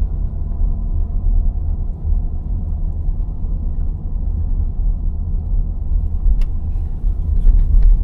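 Low, steady road and engine rumble inside the cabin of a Land Rover Defender driving slowly on a rough forest road, with a few faint clicks near the end.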